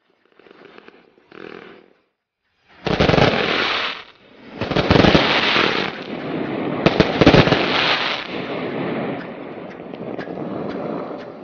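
A 299-shot fan-shaped fireworks cake firing. Two faint short bursts come first. Then, from about three seconds in, three loud, dense volleys of shots follow one after another. A long tail of smaller pops and crackle follows and slowly dies down.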